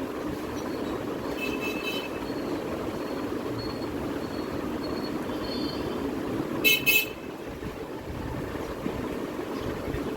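Street traffic with vehicle horns honking: a short toot about a second and a half in, a run of short high beeps, then two loud horn blasts close together near the middle, which are the loudest sound.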